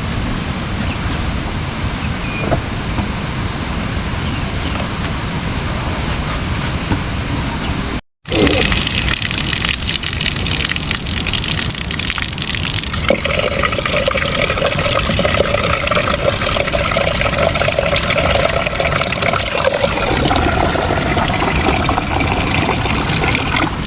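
Steady rushing and pattering of water, like rain or a running stream. It drops out for a moment about a third of the way in and comes back slightly louder, and a steady pitched hum joins it for several seconds in the latter half.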